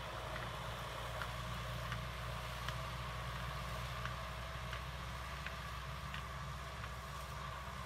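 Kubota M6040SU tractor's diesel engine running steadily as it pulls a plow through dry soil, with a faint click repeating about every 0.7 seconds.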